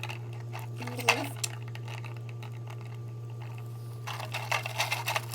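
Light handling noises over a steady low hum: a sharp click about a second in, then a flurry of small taps and rustles near the end, like plastic parts and a sticker sheet being handled.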